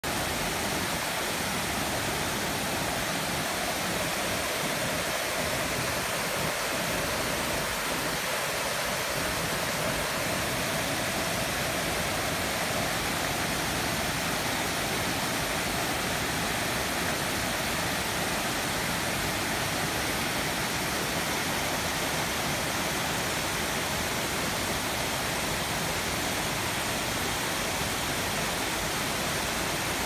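Water pouring down a man-made tiered rock waterfall and splashing into the pool below: a steady, even rush.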